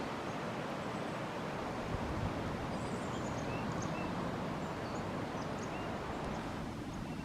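Steady rushing of flowing river water, with a few short, high bird chirps scattered through it.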